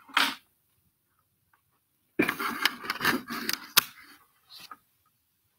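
Handling clatter and scraping as a chicken marionette is set down and the recording device is touched, with a sharp click near the end, between stretches of dead silence.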